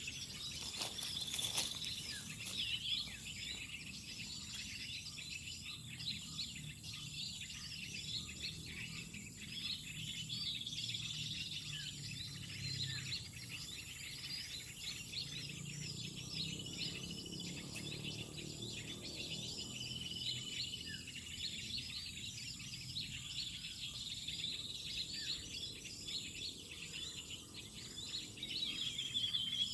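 Birds chirping and calling in a dense chorus of many short, high calls, with now and then a longer held whistle, over a faint low rumble.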